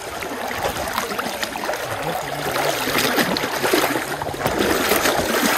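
Water sloshing and splashing around legs wading quickly through a shallow, fast-running stream.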